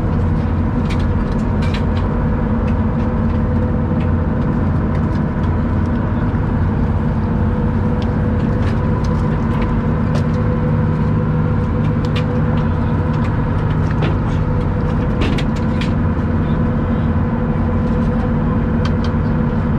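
Fishing boat's engine running with a steady, even drone, and a few short sharp clicks and knocks now and then.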